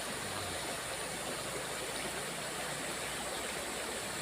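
Small river flowing: a steady, even rush of water.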